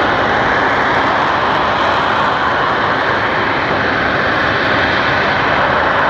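Harrier jump jet's Rolls-Royce Pegasus engine making a steady, loud jet noise with no rise or fall in pitch or level.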